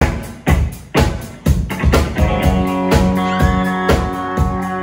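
Live rock band playing an instrumental passage on electric guitars and drum kit. The first two seconds are hard hits on the beat, about two a second. About two seconds in, held guitar chords ring out over the drums.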